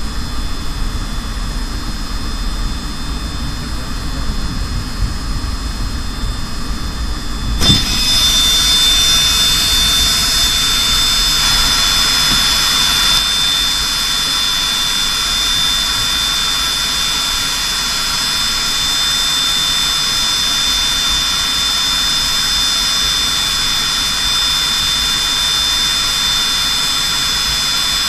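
Aircraft turbine engines running with a steady high whine, heard from the cockpit as the plane rolls along the runway after landing. About eight seconds in there is a short knock, and the whine steps up louder with a sharper high tone that then holds steady.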